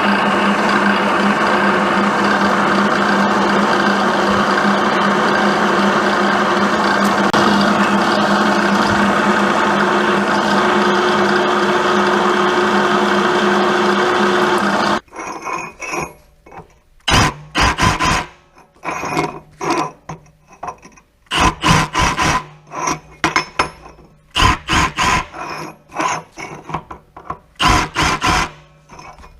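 Milling machine running, drilling holes in a metal mounting tab, with a steady motor hum and cutting noise. It stops abruptly about halfway through, followed by scattered metallic clanks and knocks as the work and tools are handled.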